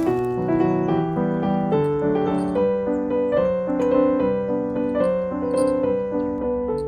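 Background music: a piano-like keyboard playing a flowing melody with chords.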